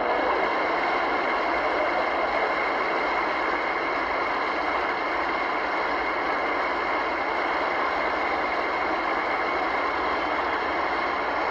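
Studio audience applauding, steady and sustained.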